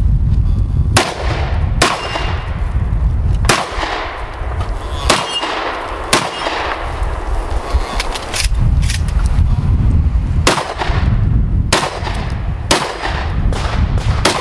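Semi-automatic 12-gauge shotgun fired about ten times at uneven intervals during a practical shooting stage, with short pauses between groups of shots and each shot ringing briefly afterwards.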